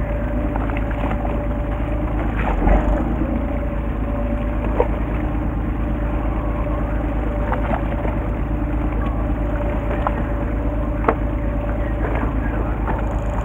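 Fishing boat's engine running steadily at low speed, a continuous drone with a low hum. A few short clicks and knocks sound over it, the heaviest a low thump a few seconds in.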